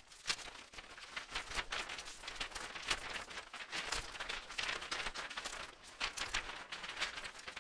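Sound effects for an animated title intro: an irregular run of noisy swishes and crackling clicks, with no melody or steady tone.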